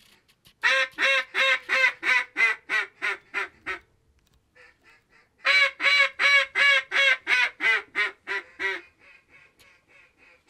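Mallard-style duck call blown by a hunter: two loud runs of about ten quacks, each run fading in loudness, then softer, quicker quacks near the end. This is calling to ducks that are coming in to the decoys.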